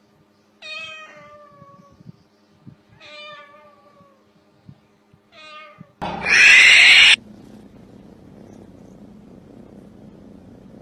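Three drawn-out meows, each falling in pitch, about two and a half seconds apart, then a loud harsh noise lasting about a second. After it a kitten purrs steadily.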